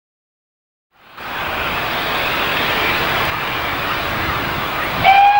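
After a second of silence, the GWR Hall class two-cylinder 4-6-0 steam locomotive is heard working a train as a dense, steady rush of exhaust and running noise. Near the end its whistle starts a steady single-note blast.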